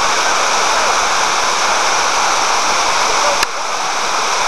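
Shallow river rushing over rocks: a loud, steady hiss of moving water. A sharp click about three and a half seconds in, after which the level drops slightly.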